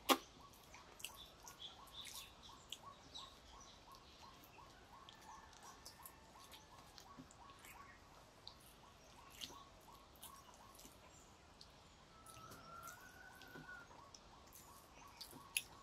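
Quiet eating by hand: scattered soft clicks and smacks from chewing and from fingers working rice on steel plates, with a sharp click at the start and another near the end. A bird chirps over and over, about three times a second, through the first half, and a short whistled call comes near the end.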